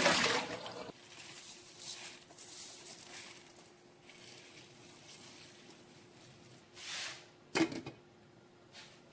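Water pours out of a pot into a stainless-steel sink for about the first second. Faint scraping follows as a wooden spoon stirs a pot of soup, and near the end a glass pot lid is set down with one sharp clink, over a faint steady hum.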